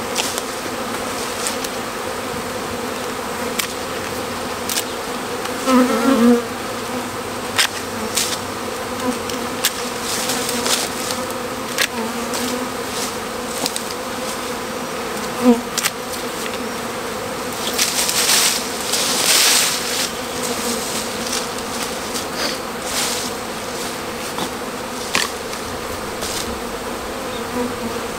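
A honeybee swarm buzzing as a steady drone, with sharp snips and snaps of loppers cutting branches scattered through it. A stretch of rustling leaves and twigs comes a little past the middle.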